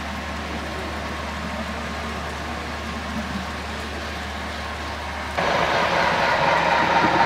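HO scale model train running along the layout track: a steady rolling noise over a low hum. About five seconds in, the sound jumps suddenly louder and brighter.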